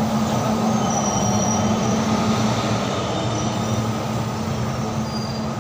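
Indian Railways passenger coach rolling slowly through a station, heard from its open doorway: a steady running noise of wheels on rail with a low hum. Faint, brief high wheel squeals come a few times.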